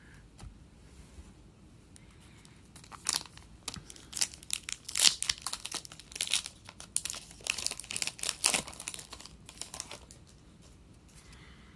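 A trading-card pack's wrapper being torn open and crinkled. It is a run of sharp crackles starting about three seconds in and dying away near the end.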